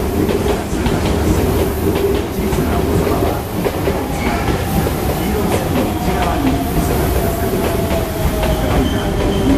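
Electric trains running at a station: a steady rumble with clattering over the rails. From about five seconds in, a faint whine falls slowly in pitch.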